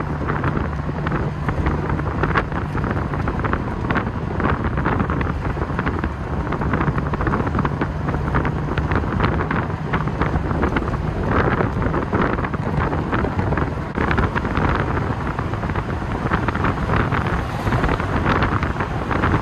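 V8 engine of an open-top TVR sports car running as it drives along, heard from the cabin under heavy wind buffeting on the microphone. The low steady engine note is clearest in the first half and then sinks under the wind.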